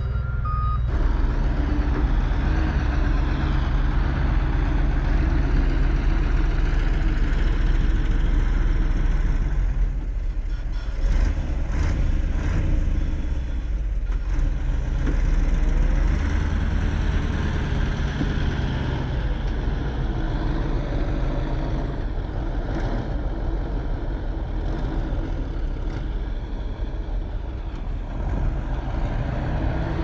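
Diesel engines of a bulldozer and dump trucks running steadily under work. The engine sound eases briefly about ten seconds in and again near the end, with a few knocks in between.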